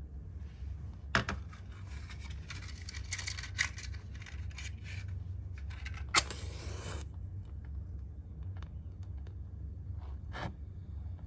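Small clicks and rattling of handled objects, then a wooden match struck about six seconds in, flaring with a brief hiss for under a second. A low steady hum runs underneath.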